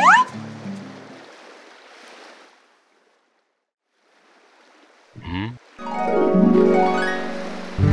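Harp glissando sweeping up at the start and fading away, a pause of near silence, then a short wobbling sound effect and another harp glissando running up and down. It is the soundtrack cue for a dream-like flash-forward.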